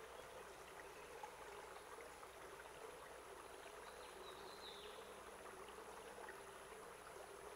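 Near silence: a faint steady hiss with a thin, high, steady whine.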